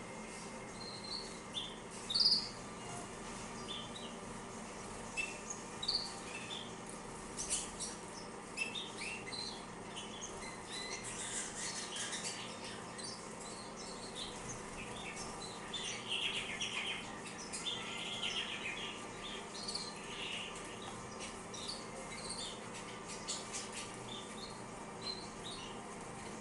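Female canaries (Glosters, Red Factors and Yellow Mosaics) giving short chirps throughout, with bursts of splashing and wing-fluttering from a bird bathing, mostly in the middle stretch.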